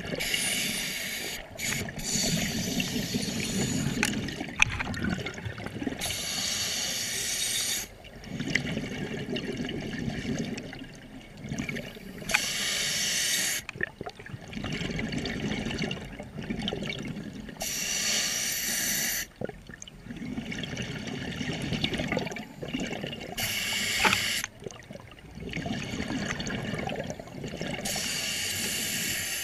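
Scuba regulator breathing underwater, about five breaths. Each breath is a short hiss of inhaled air through the regulator, followed by a longer low rumble and gurgle of exhaled bubbles.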